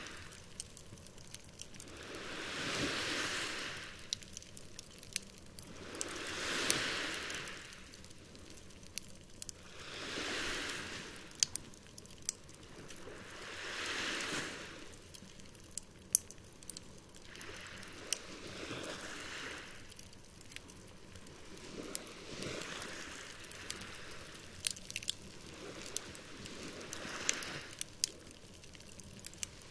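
Campfire crackling, with sharp pops scattered throughout and the loudest about halfway through. Under it, sea waves rolling in about one every four seconds, the swells softer in the second half.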